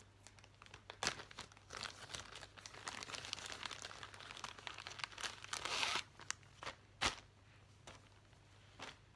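Crinkling and rustling of packaging being handled, densest about five to six seconds in, with sharp clicks about a second in and again about seven seconds in.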